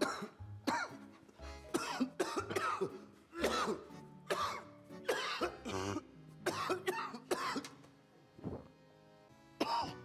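A man coughing over and over in short fits, one burst after another, over background music.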